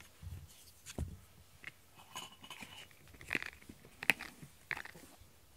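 Short crackling, scraping and clicking noises of hands pulling shed cat fur off a pink rubber grooming brush and handling the brush. There are a few sharp clicks, the loudest about four seconds in.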